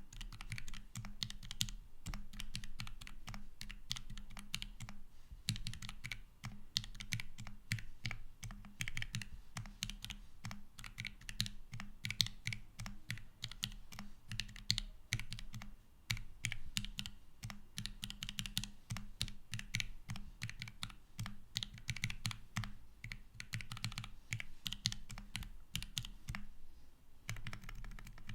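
Continuous typing on a custom Hineybush Num One mechanical keyboard: top-mounted polycarbonate plate, no foam, lubed and filmed Alpaca linear switches and Akko PBT keycaps. Fast, steady keystrokes with a short pause near the end.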